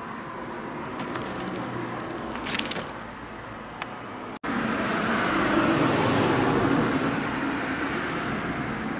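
A car passing on the road: a broad noise that swells just after a sudden break about halfway through and slowly fades toward the end. Before it, a steady traffic background with a few light clicks.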